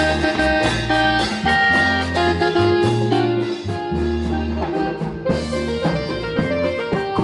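Live marimba orquesta playing an instrumental passage with no singing: an electronic keyboard with an organ-like sound over marimba, electric bass and congas and drum kit.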